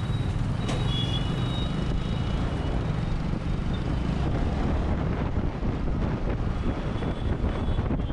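Motorcycle engine running as the bike picks up speed at low speed through town traffic, with road noise from the surrounding vehicles. Short high beeping tones about a second in and again near the end.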